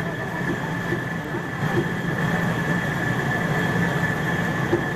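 Steady mechanical drone with a constant high-pitched whine over a low hum and busy background noise.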